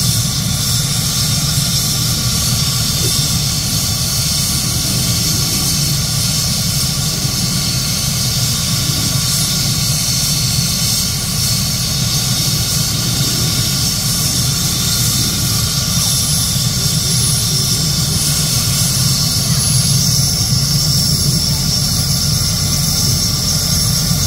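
Helicopter's turbine engines running on the ground with the main rotor turning before lift-off: a steady high turbine whine over a fast low rotor beat, one high tone edging slightly upward after the middle.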